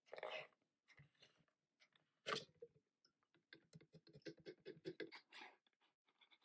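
Faint plastic handling noises from a Magic Mixie Pixlings potion bottle being opened, the gold cap and inner tube holding the doll pulled up out of the bottle: a short scrape at the start, a sharp plastic click about two seconds in, the loudest sound, then a quick run of small clicks and scrapes.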